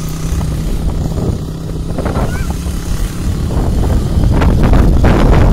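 150 cc motorcycle engine running steadily while riding over a rough dirt road. Wind rush and rumble build up and grow louder in the second half, covering the engine.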